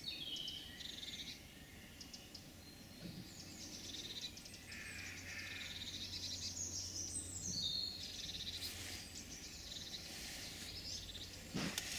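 Small woodland songbirds calling faintly, a mix of high chirps and rapid trills.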